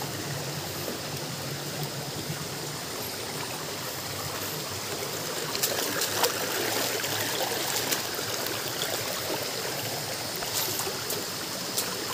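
Steady rushing of flowing stream water, with a few sharp clicks about halfway through and again near the end.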